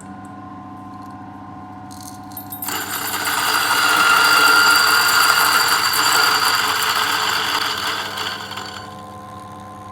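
DF64 Gen 2 flat-burr coffee grinder's motor running with a steady hum; about two and a half seconds in, beans start going through the burrs and a loud crunching, rattling grind goes on for about six seconds, then fades back to the empty motor hum as the dose is finished.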